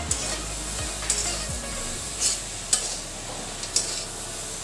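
Vegetables sizzling in oil in a metal kadai as a spatula stirs them, scraping and knocking against the pan about five times.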